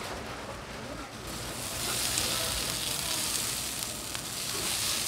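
Sliced abalone and conch sizzling in butter on a hot flat-top griddle; the sizzle swells up sharply about a second and a half in and then runs on loud and steady.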